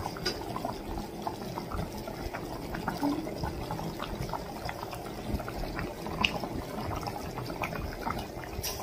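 Spiced water and coconut milk boiling in an open pressure cooker: steady bubbling with small scattered pops. The liquid is at a full boil, ready for the rice to go in.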